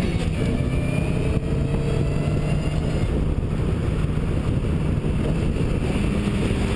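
Car driving at speed on a race track, its engine and tyre noise mixed with heavy wind rush on a camera mounted outside the body beside the front wheel.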